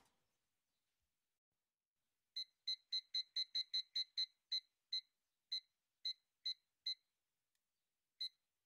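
Small digital kitchen timer beeping once with each button press: fifteen short high beeps as the minutes are set to fifteen, quick at first at about three a second, then slower, followed by one more beep near the end as START is pressed.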